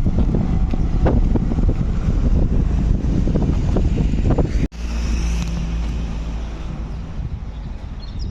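Strong wind buffeting the microphone, a heavy, gusty low rumble. About halfway through the sound cuts out for an instant and resumes as a steadier low rumble.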